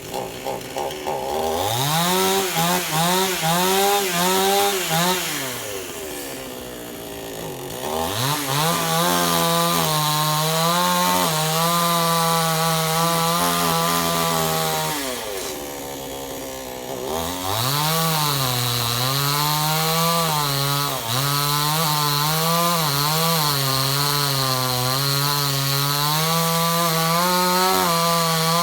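Chainsaw engine revving and cutting wood. Its pitch wavers under load, and twice it eases off toward idle for a couple of seconds before revving up again.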